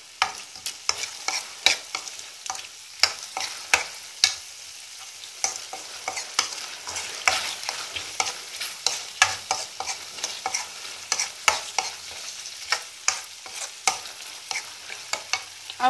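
A spoon stirring a thick sauce of ketchup, onion and capsicum in a metal kadhai, knocking and scraping against the pan two or three times a second. The sauce sizzles steadily underneath over high heat.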